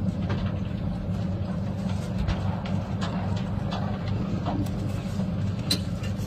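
A steady low mechanical hum, like an engine running, with scattered light crunches of snow over it. A sharper crunch comes near the end as a mouthful of fresh snow is bitten.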